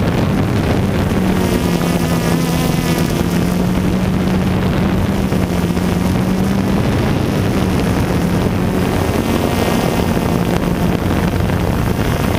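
Multirotor drone's motors and propellers buzzing steadily in flight, the pitch shifting slightly as it manoeuvres, with wind noise on the onboard microphone.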